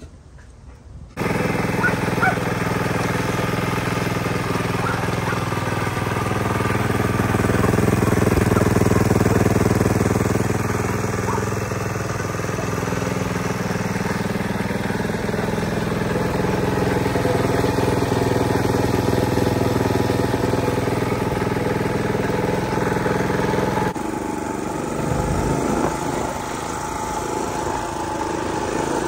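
Mini bike's small gas engine running through a freshly fitted muffler. The sound comes in suddenly about a second in, swells a little around ten seconds, and drops slightly a few seconds before the end.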